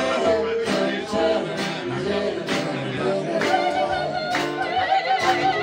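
Live acoustic band: several voices singing with vibrato over a strummed acoustic guitar, about two strokes a second.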